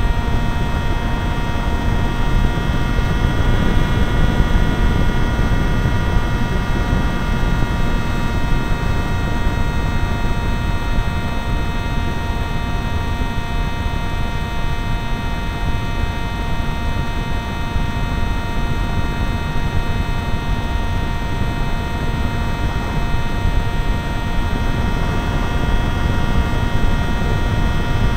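Zagi v4 RC flying wing heard from its onboard camera: the electric motor and propeller run with a steady whine of several tones, over wind rushing on the microphone.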